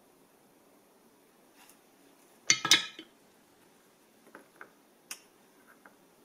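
A soldering iron and solder set down with a short clattering clink about two and a half seconds in, followed by a few light clicks and a sharp tap as a small perfboard is handled and laid on the bench.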